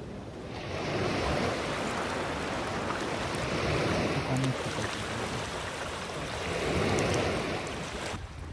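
Sea surf washing in, swelling in surges about every three seconds, with some wind on the microphone.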